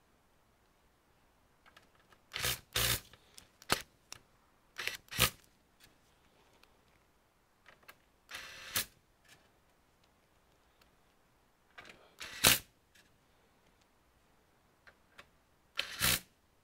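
Clicks and clacks of computer parts being handled during disassembly of an all-in-one PC. They come in small clusters a few seconds apart, with a longer half-second rasp about eight seconds in.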